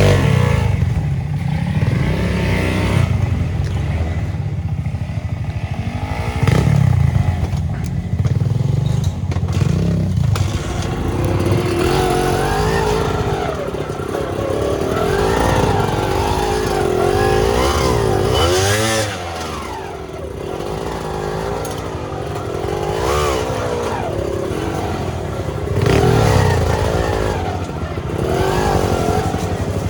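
Off-road motorcycle engine revving up and down again and again as it is ridden over rocks, with scattered knocks and rattles.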